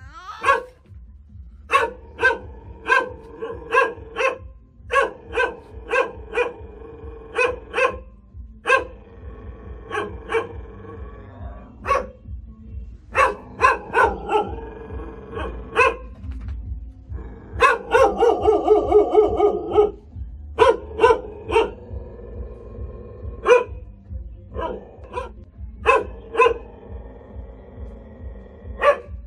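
Caged hunting dog barking aggressively in quick runs of several sharp barks with short pauses between them, and a longer unbroken stretch of barking about eighteen seconds in.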